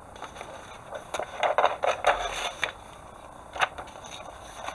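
Paper rustling and light handling clicks as a kit instruction sheet is moved. There is a cluster of short rustles about a second in and one more click near the end.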